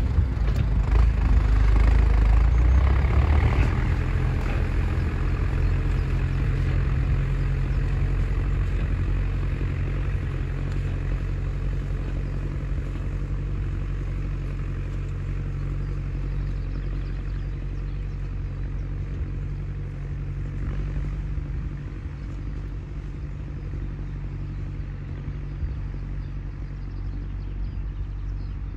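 International Harvester 844 AS tractor's four-cylinder diesel engine running steadily under load as it tows a grassland roller. The sound is loudest in the first few seconds and fades steadily as the tractor drives away.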